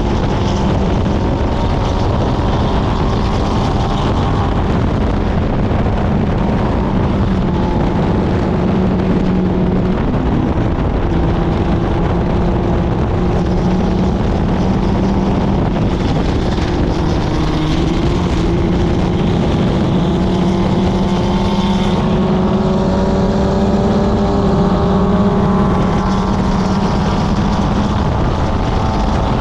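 Club Ford race car's four-cylinder engine running hard at high revs, its pitch climbing steadily along the straights and dipping briefly a couple of times under braking and shifts, with wind rushing past the car.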